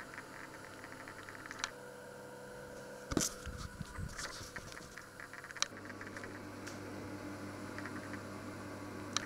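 Quiet kitchen handling noises as cookware and a plate are moved about the hob: faint clicks and light crackle, a knock about three seconds in, and a few sharp clicks. A low steady hum comes in a little before six seconds.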